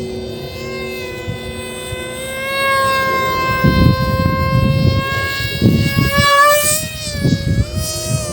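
Emax Eco II 2207 2400KV brushless motor spinning a 6x4 propeller at high throttle, a steady high whine. It rises and gets louder about two and a half seconds in, wavers up and down in pitch near the end, with a rough low rumble coming and going underneath.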